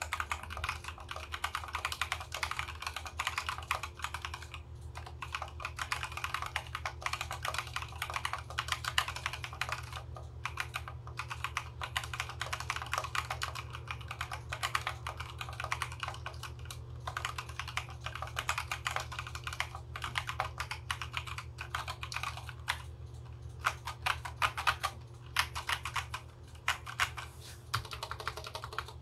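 Fast continuous typing on a custom mechanical keyboard with stock Konpeitou switches, an FR4 plate and PBT keycaps: a dense stream of keystroke clacks with a few short pauses. A steady low hum runs underneath.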